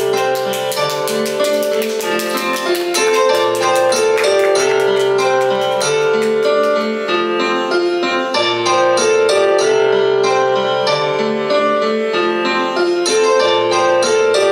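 Instrumental backing music over the PA: a keyboard melody of short pitched notes over a steady beat, with no vocals.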